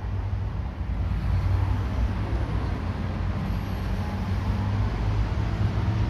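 Steady road traffic noise from a busy junction: a continuous low rumble of passing vehicles with no single standout event.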